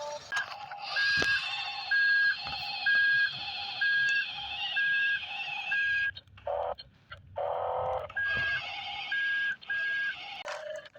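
Electronic two-tone beeping: a short high beep alternating with a lower one, a bit under once a second, over a high wavering whine. It breaks off about six seconds in for two short, louder, lower tones, then resumes.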